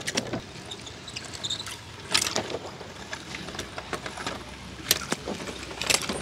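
Die-cast toy cars dropping into a tub of water: a few short splashes and knocks, about two seconds in, about five seconds in and near the end.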